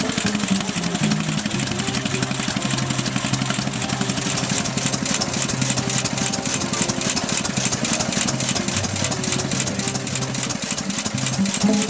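Petter-Light generating set's single-cylinder stationary engine running steadily, driving its dynamo, with a rapid, even beat of firing strokes. A tune of held low notes plays behind it.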